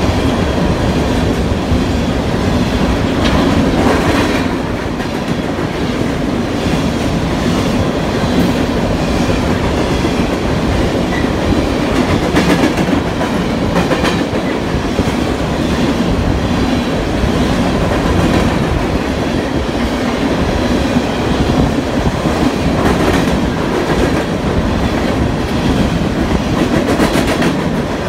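Coal cars of a freight train rolling past close by: a steady rumble of steel wheels on rail, with the clickety-clack of wheels passing over rail joints.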